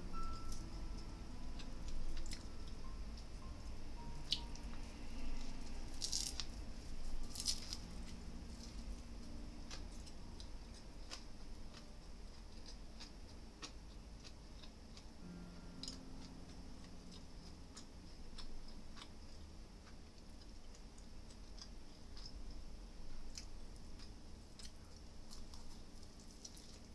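A person biting and chewing a thick nori-wrapped sushi roll (ehomaki): soft wet mouth sounds with scattered small clicks, and two crisper bites about six and seven and a half seconds in.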